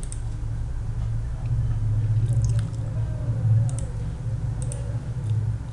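Steady low electrical hum in the recording, with a few faint clicks of a computer mouse and keyboard as a drawing command is picked.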